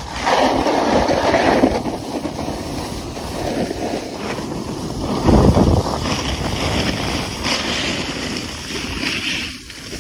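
Wind rushing over a phone's microphone while snowboarding downhill, mixed with the snowboard's edges scraping and hissing over hard-packed snow. The noise swells in louder surges about a second in and again about halfway through.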